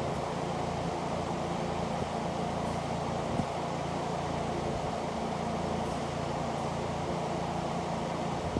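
Electric fan running steadily: an even whoosh with a low hum. A faint tap about three and a half seconds in.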